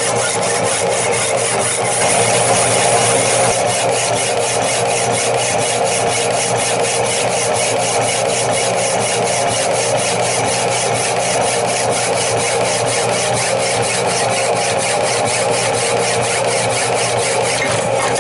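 Power hacksaw running, its blade cutting through the cast-iron body of an F.E. Myers shallow well pump in an even, steady rhythm of strokes.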